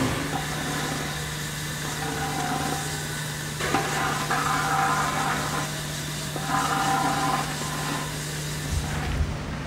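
Steady low hum of an engine idling. A steel shovel scrapes across concrete twice, for about two seconds starting about four seconds in, then again briefly about a second and a half later.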